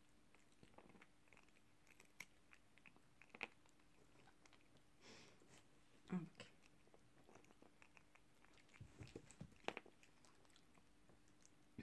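A cat chewing and crunching a small fish cracker taken from a person's fingers, heard as faint, scattered crunches and clicks.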